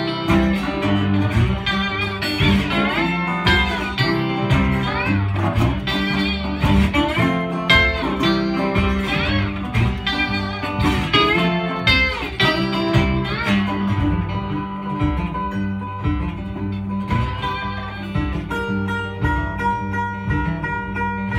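Instrumental blues break on guitars: a slide guitar plays gliding, bending phrases over a steady strummed acoustic guitar and a repeating low bass line. About two-thirds of the way through, the glides give way to steadier picked and held notes.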